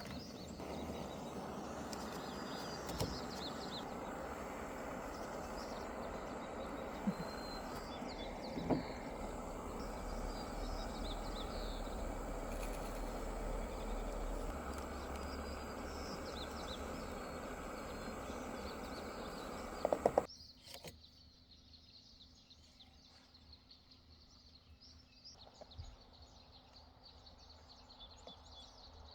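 Outdoor ambience: a steady rushing noise with small birds chirping over it, then about two-thirds through it drops suddenly to quieter, busy birdsong.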